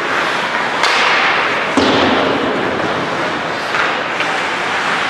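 Two sharp impacts about a second apart, then a softer knock near the end, over the steady din of a large indoor hall.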